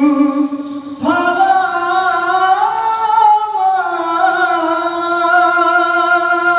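Dikir barat lead singer's solo male voice through a microphone, singing long, drawn-out melismatic notes with slow pitch bends. A short break comes about a second in, then one long phrase runs on.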